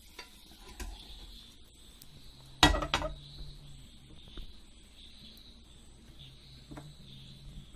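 A metal frying pan knocking against a steel plate: a sharp double clank with a brief ring about two and a half seconds in, as the omelette is slid off onto the plate.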